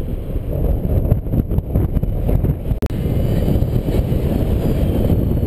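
Airflow buffeting a camera microphone on a paraglider in flight: a steady, low, rumbling wind noise, with one brief click about halfway through.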